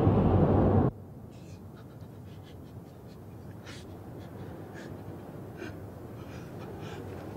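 Loud blizzard wind blowing, cutting off abruptly about a second in. A quiet stretch follows with scattered soft crunches of footsteps in snow.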